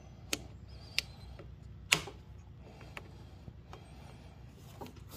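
Pliers squeezing a spring hose clamp and working it along a rubber fuel line onto the nipple of a new fuel filter: a handful of sharp metal clicks, the loudest about two seconds in, over a low steady hum.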